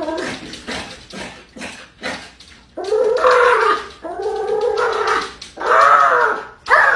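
Small dog whining at a glass door in drawn-out cries whose pitch rises and falls: a few short ones, then three long, loud ones from about three seconds in.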